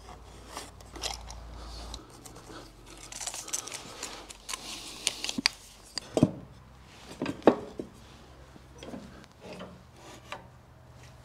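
Pencil scratching and rubbing on a bare oak board, then the board being handled and set down on a table saw's steel table with a few sharp knocks a little past the middle; the saw is not running.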